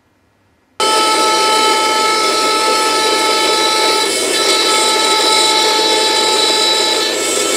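Bandsaw running, starting abruptly about a second in with a loud, steady whine over a dense rasp, its blade cutting a thin strip of wood fed by hand.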